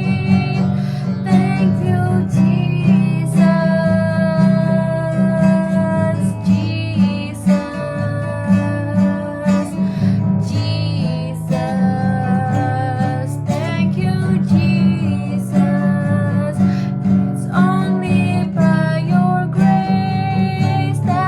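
Music led by strummed acoustic guitar, with held melody notes over a steady bass line.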